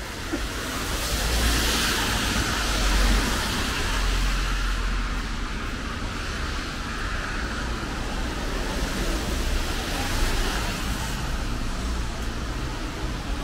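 Cars passing on a rain-wet street: tyre hiss swells up and fades away twice over a steady low traffic rumble.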